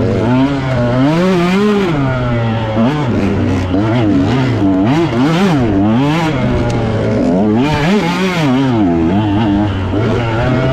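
Dirt bike engine revving up and down over and over as the throttle is worked, each rise and fall lasting about a second, over a steady low engine drone.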